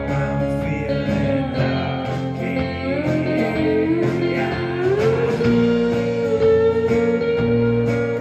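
Live rock band playing an instrumental passage on guitars, bass and drums; a long lead-guitar note slides upward about halfway through and is held.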